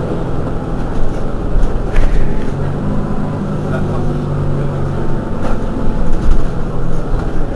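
Mercedes-Benz Citaro G C2 articulated city bus idling steadily while standing at a stop, with two sharp clicks.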